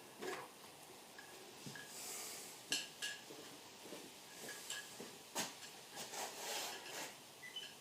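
Faint scattered clicks, knocks and rustles, a few sharp taps among them, as of tools and materials being handled.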